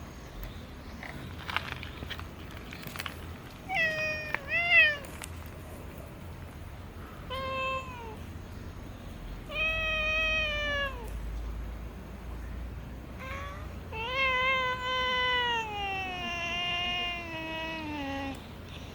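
Domestic cat meowing over and over: a couple of short meows, then longer drawn-out ones, the last a long meow that falls in pitch.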